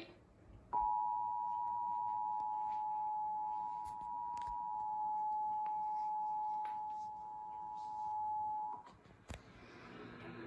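Emergency Alert System attention signal: a steady two-tone beep that starts just under a second in and holds for about eight seconds, announcing an emergency alert. A single click follows shortly after it stops.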